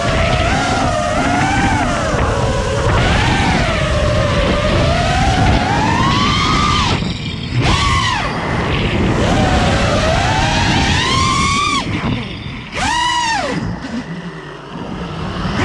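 FPV freestyle quadcopter's brushless motors whining, the pitch rising and falling constantly with throttle. Twice, about halfway and again about three-quarters through, the whine briefly drops away and then spools up and down again in a quick swoop.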